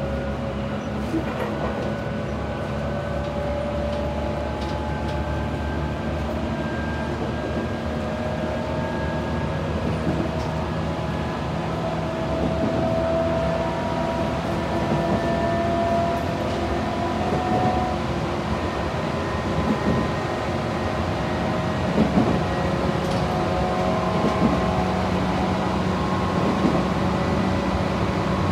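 Tobu 8000 series electric train running at speed, heard from inside a passenger car: the motors and gears whine in several steady tones that drift slowly in pitch, over the rumble of wheels on rails. A few rail-joint knocks come in the second half.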